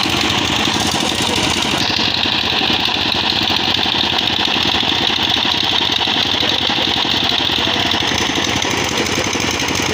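A nearby engine running steadily at idle with a fast, even chugging beat.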